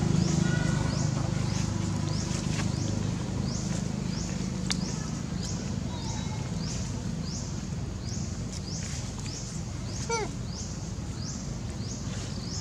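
Forest ambience: a high rising chirp from a calling insect or bird repeats steadily, about three every two seconds, over a low rumble that fades over the first few seconds. About ten seconds in comes one short falling squeak.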